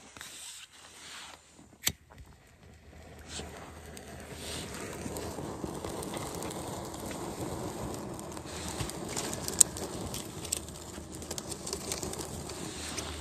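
A sharp click about two seconds in, then steady crackling and rustling that slowly grows louder as a bundle of dry old man's beard lichen is lit with a lighter and starts to burn.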